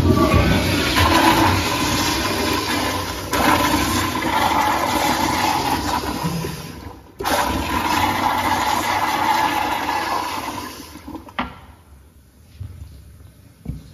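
Commercial toilet's handle-operated flush valve pushed, sending a sudden loud rush of water into a Kohler 1.6-gallon bowl. The rush breaks off briefly once about seven seconds in and tapers away after about eleven seconds, followed by a sharp click and a small knock near the end.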